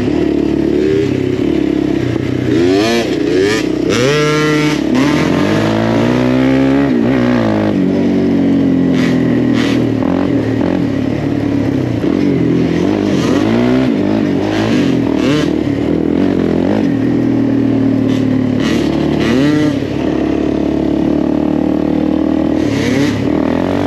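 Single-cylinder off-road engine revving up and down over and over, its pitch rising and falling with the throttle, with occasional knocks and rattles.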